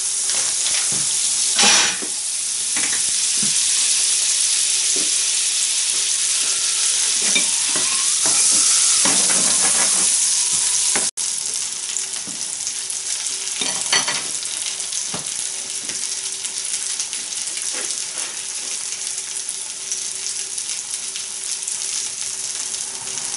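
Hash brown patties of grated potato and onion frying in melted butter in a non-stick frying pan: a steady, dense sizzle, with a couple of brief knocks about two seconds in and again past the middle.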